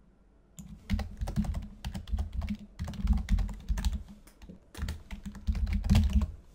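Typing on a computer keyboard: a fast run of irregular keystrokes that starts about half a second in, breaks off briefly a little past the middle, then resumes and stops shortly before the end.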